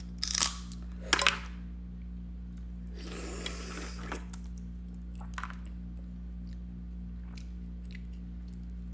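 Crunching and crackling of food being bitten or handled: two loud crunches in the first second and a half, a rustling swish about three seconds in, then scattered small clicks, over a steady low hum.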